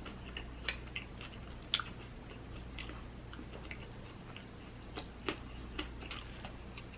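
Close-miked chewing of a crisp fried birria taco, with scattered small crunches and clicks as the tortilla is pulled apart by hand; the sharpest crack comes a little under two seconds in.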